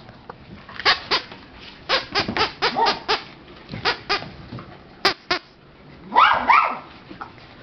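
American cocker spaniel puppy barking in short, high yaps, about a dozen in quick clusters, then a longer yelp with a wavering pitch about six seconds in.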